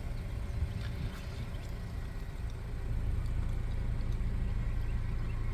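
Steady low mechanical drone, like an engine or motor running nearby, with a few faint light clicks over it.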